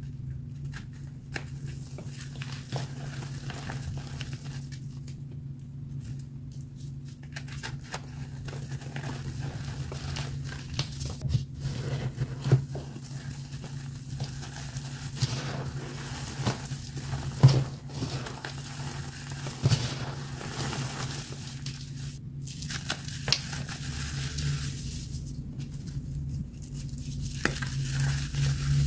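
Hands crushing and squeezing dry, crumbly chalk blocks: a continuous crackling, crunching crumble of breaking pieces and powder, with a few sharper snaps, the loudest a little past halfway. A steady low hum runs underneath.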